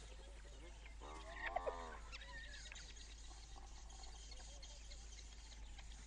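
Spotted hyena giving one short whining call with a wavering pitch about a second in, over a faint background of insects chirping.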